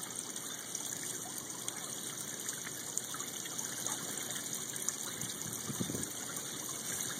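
Koi pond water trickling and splashing steadily, with light splashes as a child kicks his feet in the water.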